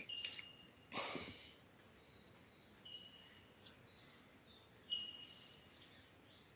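Birds calling faintly: short, clear high whistled notes, several in small runs that step down in pitch. Two soft rustles, one about a second in and one near five seconds.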